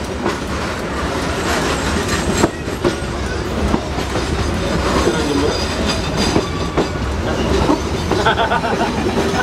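Passenger train carriages running on the rails, heard from aboard the moving train: a steady rumble with wheels clattering and knocking irregularly over the track.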